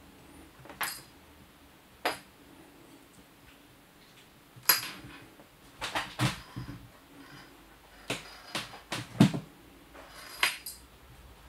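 Irregular light taps and clicks, a dozen or so, as a ribbon wand cat toy knocks and drags against a wooden tabletop during play.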